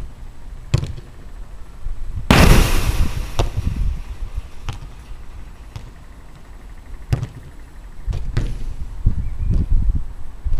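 Football being kicked on an outdoor five-a-side pitch: sharp single thuds every second or so, with a much louder crash about two seconds in that rattles on for about a second. Wind rumbles on the microphone in gusts.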